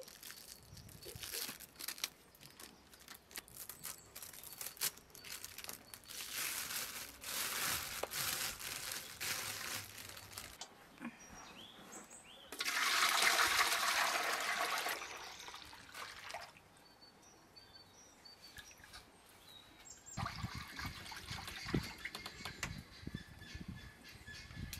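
Buttermilk gushing from the mouth of a tipped clay butter churn into an aluminium pot about halfway through, loud for a couple of seconds and then tapering off. Before it, plastic and rope rustle as the churn's mouth is untied. Near the end, a hand splashes through the buttermilk in the pot.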